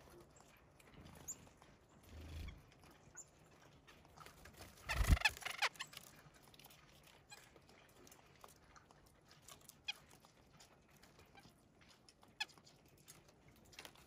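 Small songbirds at a window seed feeder: scattered light taps and clicks of pecking and landing, with a louder scuffle and thump about five seconds in and a few faint high chirps.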